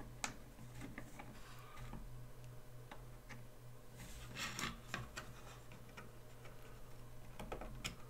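Scattered light clicks and taps of small plastic and metal parts being handled as a slot car axle with wheels, pulley and bushings is fitted into a 3D-printed tire truing machine's swing arm, with a small cluster of clicks about halfway through. A faint steady low hum lies underneath.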